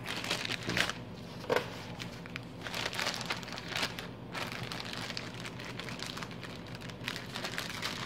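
Clear plastic zip-top bags crinkling and rustling in irregular crackles as hands handle and pack them.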